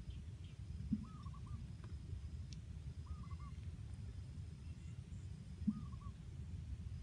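A bird calling three times, each call a short run of wavering notes, over a steady low rushing background, with two soft thumps.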